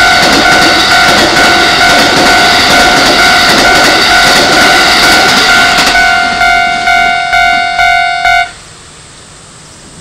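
Level-crossing warning bell ringing with a steady, piercing tone while a Keikyu 2100-series eight-car train rolls past with wheel-on-rail rumble. The train noise fades about six seconds in, and the bell stops abruptly a couple of seconds later once the train has cleared the crossing.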